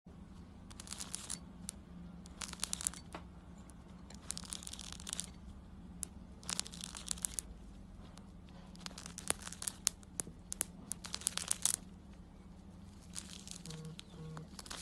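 Crackly tearing noises in about seven short bursts, over a faint steady hum.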